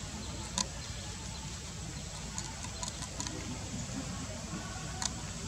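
Steady low outdoor background noise with two sharp clicks, one about half a second in and one near the end, and a few fainter clicks between them.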